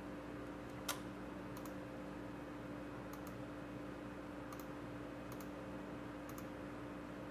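Quiet room tone with a steady low hum, broken by a few faint light clicks: one sharper click about a second in, then small double ticks every second or so.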